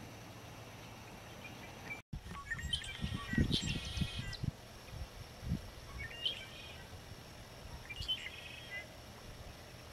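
Wild birds calling: several short chirps and trills in separate bouts, over a faint steady outdoor background, with a few low thumps about three to four seconds in.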